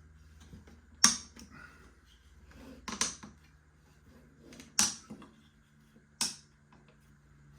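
Four sharp clicks, one every second and a half to two seconds, with soft handling between them, the first the loudest: small clamps being set and snapped onto a glued wooden guitar side.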